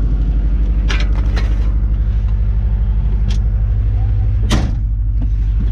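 Ford Ranger engine running steadily under a low drone with a fine even pulse, an engine the owner says has a little rod knock. A few sharp clunks break in, the loudest about four and a half seconds in.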